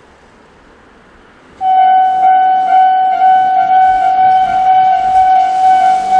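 Japanese railway level-crossing warning alarm switching on about a second and a half in: a shrill electronic bell tone repeating about twice a second, the crossing's distinctive non-standard alarm sound.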